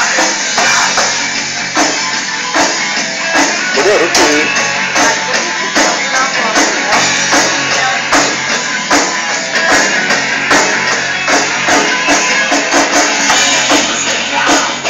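Live rock music from an electric guitar and an electronic drum kit, the drums keeping a steady beat.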